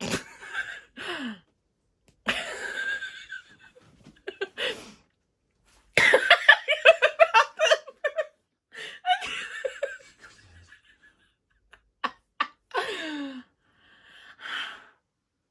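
People laughing in fits and bursts, with gasping breaths between, the longest run of quick laughs about halfway through.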